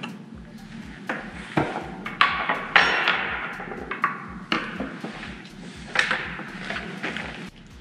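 Several irregular metallic clinks and clanks, each ringing briefly, as a removed motorcycle brake lever and hand tools are handled and set down.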